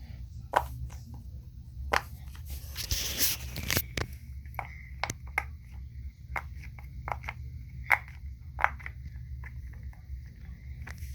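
Silicone pop-it fidget toy bubbles being pressed, popping in an irregular series of short clicks. There is a brief rustle of handling about three seconds in.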